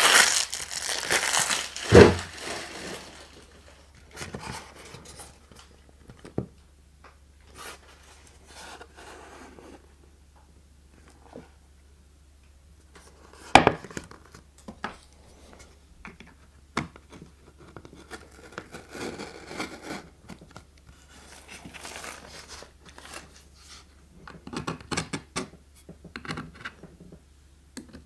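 Cellophane wrapper crinkling as it is crumpled in the hands for about the first two seconds, then a thump. After that come scattered light knocks and scrapes from handling a wooden cigar box, with a sharp knock about halfway through. Near the end a knife blade scratches along the box's paper seal.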